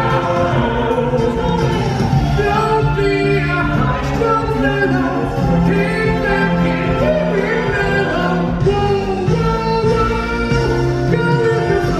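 A musical number from a live stage show: several voices singing together over instrumental accompaniment.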